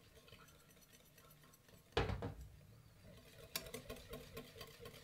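Wire whisk stirring thickening mayonnaise in a ceramic bowl. About two seconds in, a single knock as the ceramic oil jug is set down; from about three and a half seconds the whisk's wires tick rapidly and lightly against the bowl.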